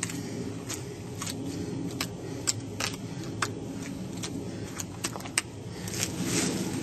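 Hunting knife clicking and scraping irregularly against the neck vertebrae of a sambar stag as it is worked in to find the joint gap and take the head off, over a steady background hiss.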